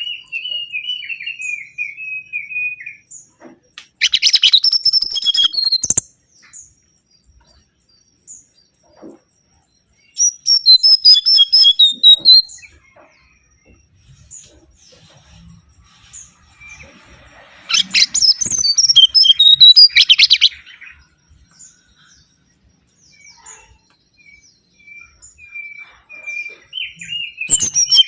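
Mangrove whistler singing: phrases of rapid, rising and falling whistled notes, one every several seconds, with quiet pauses between.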